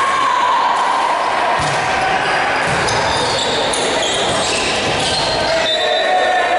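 Volleyball rally in a large gymnasium: sharp thuds of the ball being struck a few times, with players' calls and shouts in the echoing hall.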